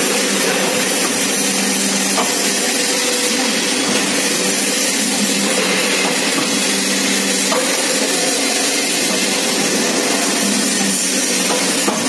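Roof sheet crimp-curving machine running, its crimping rollers working a corrugated metal roofing sheet into a curve: a steady mechanical noise with a low hum and a few faint clicks.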